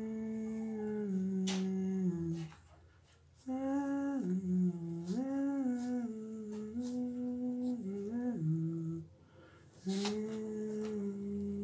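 A man humming a slow tune in long held notes that step between pitches, in three phrases with short pauses between them. Faint scratches of a pencil on paper come through now and then.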